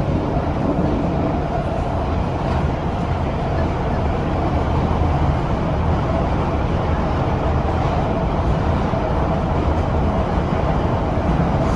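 London Underground Bakerloo line train running steadily between stations: a continuous low rumble with a faint steady hum over it.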